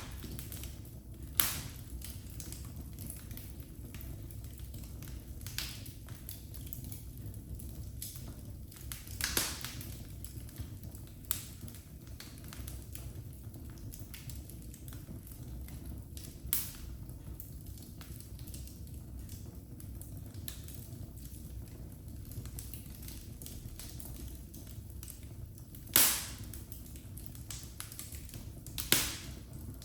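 Wood fire in a fireplace crackling: a steady low rumble of flame with scattered sharp pops every few seconds. The loudest pops come about a second and a half in and twice near the end.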